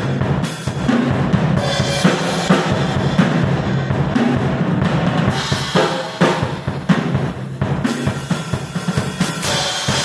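An MW acoustic drum kit played in a fast, busy pattern of bass drum, snare and tom strokes with several cymbal crashes, the last crash near the end left to ring out. The rack tom and floor tom carry newly fitted, freshly tuned heads.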